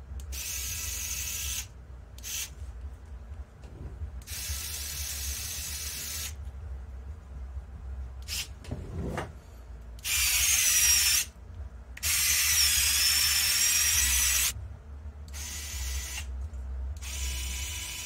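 SKIL SD561201 4V cordless screwdriver whirring in a series of short runs of about one to two seconds, starting and stopping. The two longest and loudest runs, about halfway through, are with the spinning bit gripped by hand: the motor keeps turning under the load, its pitch wavering.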